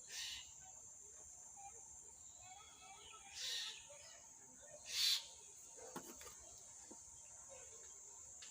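Faint, steady, high-pitched insect chirring throughout, with three short hissing rustles: one at the start, one about three and a half seconds in, and a louder one about five seconds in. A small click follows about six seconds in.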